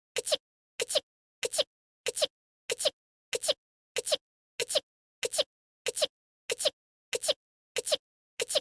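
An anime girl's short voiced sneeze, one clip looped back to back about one and a half times a second. Each is a quick two-part 'ah-choo' with dead silence between.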